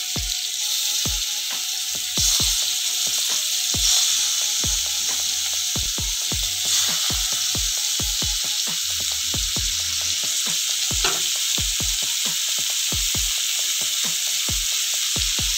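Marinated prawns sizzling in hot coconut oil in an iron cheenachatti (kadai): a steady hiss with frequent sharp crackling pops of spitting oil. The sizzle gets louder about two and four seconds in, as more prawns go into the oil.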